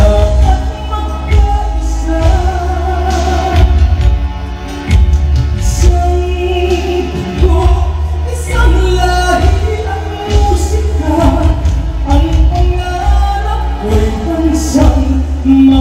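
A woman singing a Tagalog song into a microphone, amplified, over backing music with a strong, steady bass.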